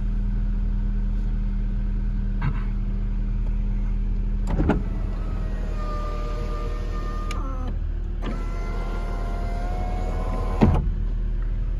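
Electric moonroof motor of a 1997 Honda Civic EK4 running twice, a whine of about three seconds each time that rises slightly in pitch, starting and stopping with a click and ending with a thump. Underneath, the car's 1.6 L B16A2 VTEC four-cylinder idles steadily.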